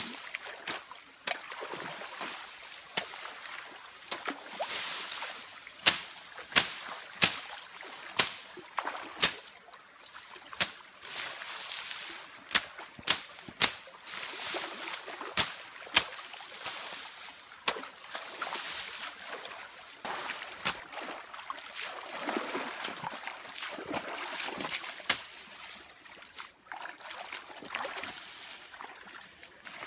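Splashing in shallow running water, with a run of sharp splashes about once a second through the middle, over steady trickling.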